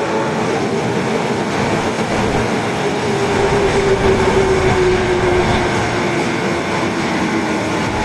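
Osaka Metro subway train running with a steady rumble. From about three seconds in, a clear tone slowly falls in pitch.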